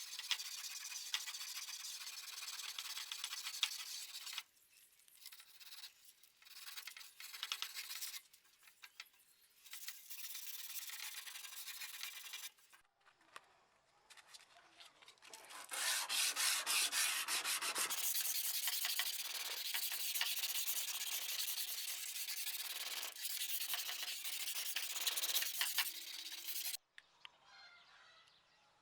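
Abrasive hand-rubbing on a steel sword blade: quick, scratchy back-and-forth strokes in long runs. It pauses about four seconds in and again around the middle, and stops a couple of seconds before the end.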